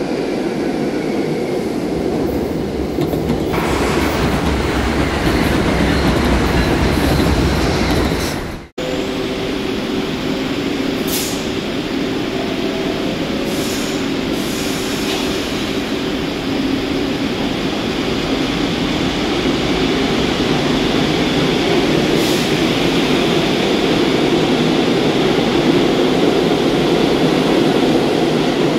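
New York City subway train of R62A cars in an underground station: one arrives with a steady rumble and faint wheel squeal, then after a sharp break about nine seconds in another runs along the platform, its rumble slowly growing louder, with a few short clicks.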